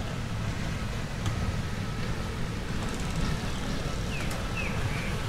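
Steady low outdoor background rumble, with a few short high bird chirps near the end.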